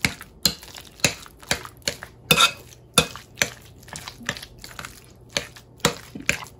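A metal spoon clinks and scrapes against a ceramic plate as it stirs a thick, creamy shrimp mixture: a run of irregular sharp clicks, about one or two a second, with a longer scrape about two and a half seconds in.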